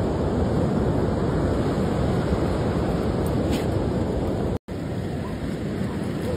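Wind buffeting the microphone over the steady rush of ocean surf. The sound drops out for an instant a little past halfway.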